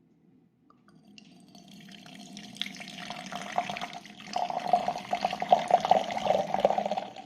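Water running and splashing, as from a tap. It starts about a second in, gets louder after about four seconds and stops abruptly at the end.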